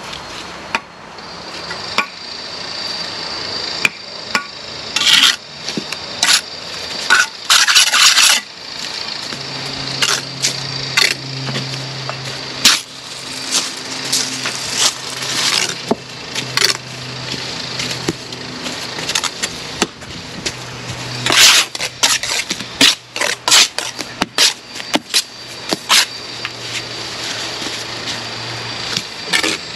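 Brick trowel working London bricks and mortar: irregular sharp clinks and taps of steel on brick, mixed with scraping of mortar. A low steady hum joins about nine seconds in and stops near the end.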